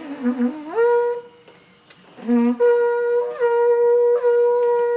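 Horagai, the yamabushi conch-shell trumpet, blown twice: each blast starts on a low wavering note and jumps up to a higher note held steady. The first is short; the second lasts about three seconds, with a couple of brief breaks in pitch.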